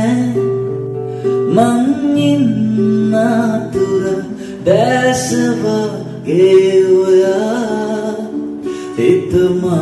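A song: a voice singing in held, gliding phrases over steady instrumental accompaniment.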